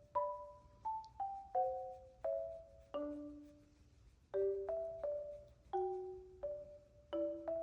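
Background music: a gentle, unhurried melody of struck mallet-percussion notes, each ringing and fading, a marimba- or glockenspiel-like tune.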